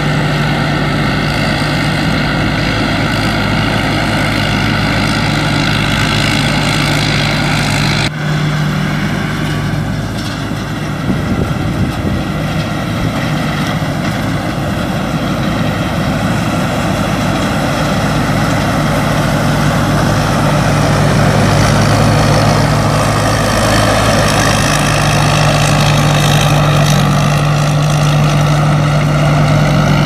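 Rice combine harvester running steadily while it harvests, its engine giving a constant hum. The sound breaks off suddenly about eight seconds in, then grows somewhat louder in the last third.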